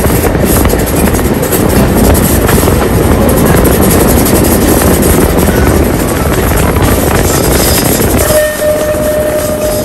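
Jacobite steam train running, heard from a carriage window as a loud, steady rush of noise. About eight seconds in, a steady high tone begins and holds for more than a second.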